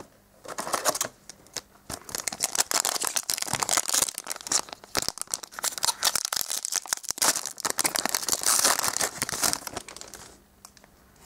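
Shiny foil wrapper of a trading-card booster pack crinkling and tearing as it is opened by hand: a dense crackle that dies down near the end.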